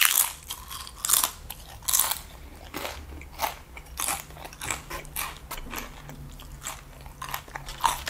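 Tortilla chips coated in nacho cheese sauce being bitten and chewed, a run of irregular crunches, the loudest right at the start.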